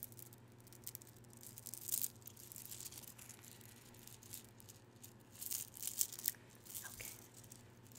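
A rosary of clear faceted beads handled close to the microphone, the beads clicking and rattling softly against each other, with louder clicks about two seconds in and again around six seconds.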